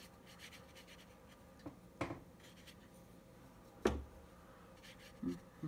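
Faint scratching of a watercolour brush working paint, with a few short taps; the loudest, about four seconds in, has a dull knock under it.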